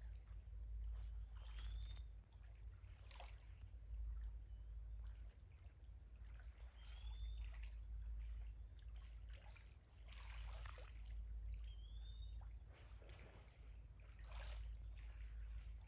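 Kayak paddle strokes: the blades dipping into the lake and water trickling and dripping off them, a stroke roughly every second or two. Under it runs a steady low rumble, and a short high chirp that rises then levels off repeats every few seconds.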